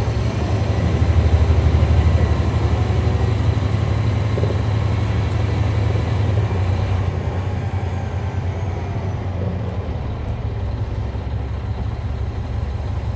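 Caterpillar C13 diesel engine of a NABI 40-SFW transit bus running under load, heard from the back seats close to the rear-mounted engine. It is loudest over the first few seconds, then settles a little lower and runs steadily.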